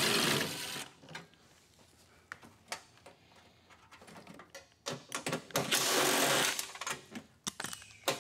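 Cordless ratchet with a 10 mm socket buzzing as it spins bracket nuts off, in two runs: one ending a little under a second in and a longer one of about two seconds starting about five seconds in. Light clicks of metal handling come in between.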